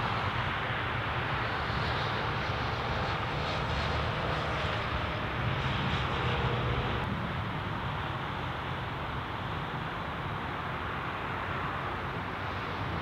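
A steady drone of distant engines, rising slightly in the middle.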